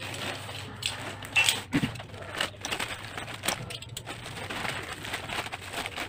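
Plastic courier mailer bag crinkling and crackling in irregular bursts as it is handled and torn open.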